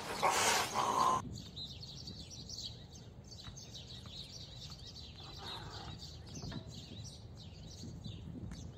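A cat's yowl during a standoff with another cat, cut off suddenly about a second in. Then quieter outdoor sound with birds chirping in short, scattered bursts.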